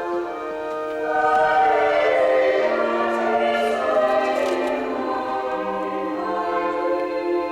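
A church choir of men and choristers singing held chords, growing louder about a second in.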